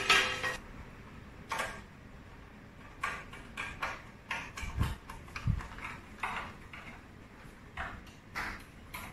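Irregular small clicks and taps of screws and a screwdriver being handled and worked into a shelf, with two dull low thumps about five seconds in.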